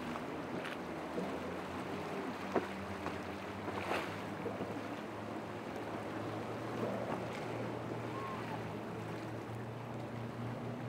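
Yamaha outboard motor running under way at speed, a steady low drone over the wash of waves and wind. A sharp knock comes about two and a half seconds in and another about four seconds in.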